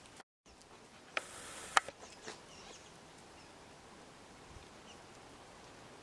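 Nēnē (Hawaiian geese) grazing: a few sharp clicks and a short rustle about a second in as beaks pluck and tear at grass, then a faint outdoor background.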